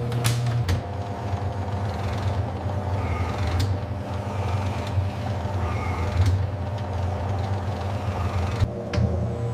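Industrial machinery running with a steady low hum, with scattered clicks and clanks through it.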